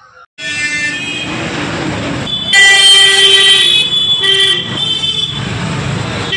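Busy road traffic with vehicle horns honking: a loud honk held for about a second, starting about two and a half seconds in, then a short honk about a second later.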